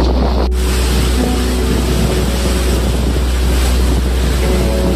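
Motorboat running through choppy sea, with wind buffeting the microphone over the rush of water and a faint engine hum. The hiss of wind and water grows louder about half a second in.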